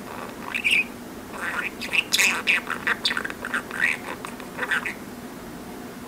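Pet budgerigar chattering: a quick run of short squeaky chirps and warbles over a steady hiss, stopping about five seconds in.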